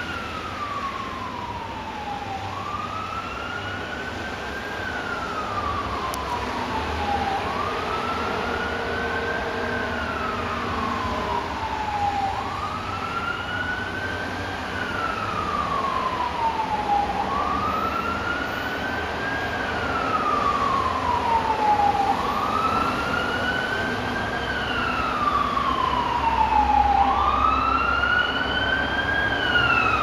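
Emergency vehicle siren in a slow wail, its pitch rising and falling about every five seconds and slowly growing louder; a second siren joins in near the end.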